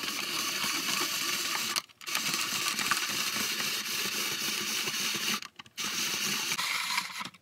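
Spiralizer shredding yellow zucchini into noodles: a steady crunchy grinding of blade through squash, in three spells with short breaks about two seconds and five and a half seconds in.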